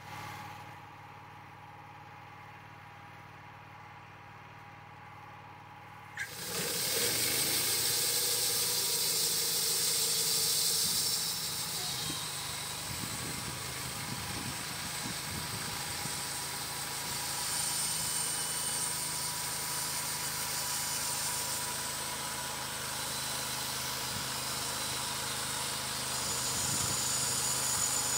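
Wood-Mizer LT35 band sawmill running steadily. About six seconds in, the band blade enters the log and a loud, steady hiss of sawing takes over as it cuts a slab off the top.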